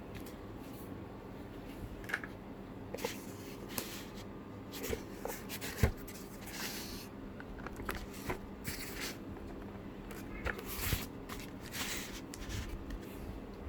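Hands handling a model car's packaging: scattered rustles, scrapes and light knocks, with a faint steady hum underneath.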